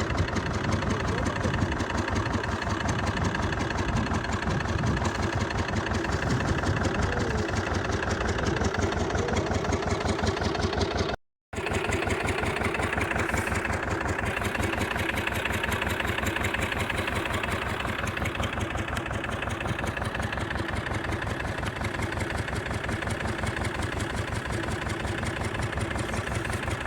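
An engine running steadily with a rapid, even beat. It drops out abruptly for a split second about eleven seconds in, then carries on the same.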